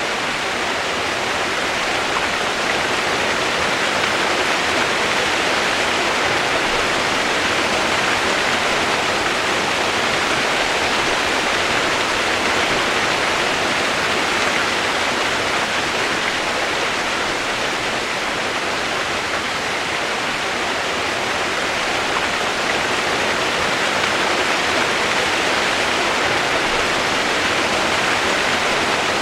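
Steady, unbroken rushing of running water, like a waterfall or fast stream, with no distinct splashes or other events.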